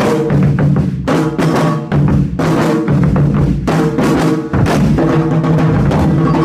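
Percussion-led music: loud drum hits over a steady bass line and held instrumental notes.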